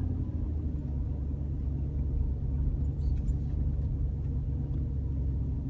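Steady low rumble of a 2001 Jeep Grand Cherokee's 4.7-litre V8 and road noise heard from inside the cabin while driving.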